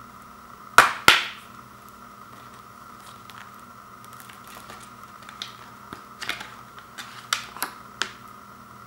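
Plastic Blu-ray case being handled and opened: two loud sharp plastic clicks about a second in, then a run of lighter clicks and snaps in the second half as the case is pried open and the paper insert is handled.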